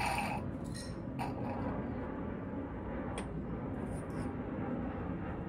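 A few light metallic clinks as a fork-oil level tool, a metal suction rod with a stop clamp, is worked and lifted out of the top of the fork tube, over a steady low background rumble.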